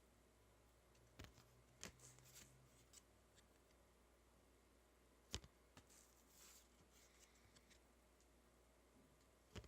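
Near silence with faint rustling and a few soft clicks from trading cards and pack wrappers being handled, the sharpest click about five seconds in.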